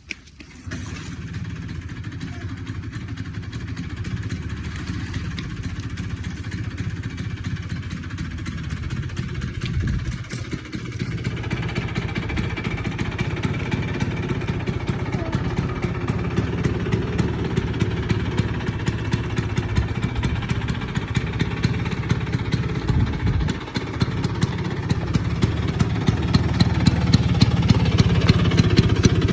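1974 Vespa Sprint scooter's two-stroke single-cylinder engine starting up and then running steadily, growing gradually louder, with two brief dips in its note about a third and three quarters of the way through.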